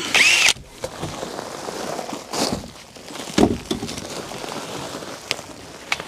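Irregular rustling, shuffling and knocks of a person crawling across a cramped attic carrying a drill, with a short rising-and-falling whine at the start and a loud thump about three and a half seconds in.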